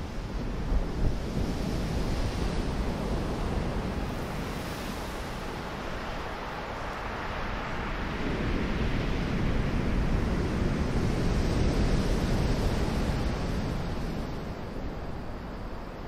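Pacific surf breaking and washing up a coarse sand-and-gravel beach, a steady roar that swells to its loudest about two thirds of the way through and then eases off. Wind rumbles on the microphone throughout.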